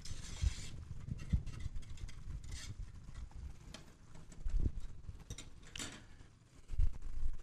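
Wire whisk stirring yogurt in a metal pot set in a hot water bath: soft swishing with irregular light knocks against the pot, as the yogurt heats and starts to thicken.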